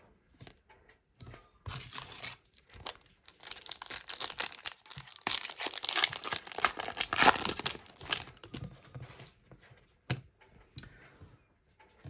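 A trading card pack's wrapper being torn open and crinkled by hand: a few short rustles, then several seconds of loud continuous crackling that dies away, followed by a single sharp click near the end.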